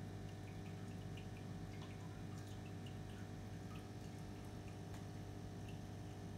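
Aquarium filter pump humming steadily, with faint scattered drips and trickles of water.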